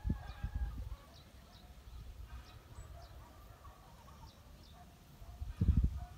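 Chickens calling faintly, a thin broken series of pitched clucks, with small high chirps now and then. Low thumps come in the first second and again near the end.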